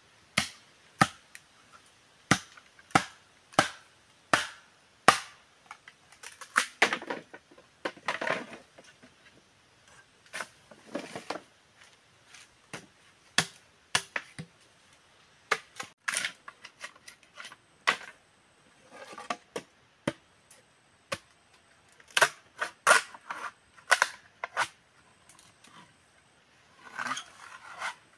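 Machete blade chopping bamboo poles: sharp cracking strikes, about one every three-quarters of a second at first, then at irregular intervals, with stretches of rustling and scraping in between.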